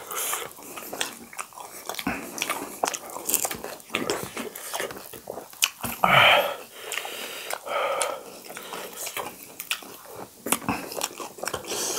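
Close-up eating sounds of pani puri: crisp fried puri shells crunching as they are bitten, then chewed, with many small mouth clicks. A louder mouth noise comes about halfway through.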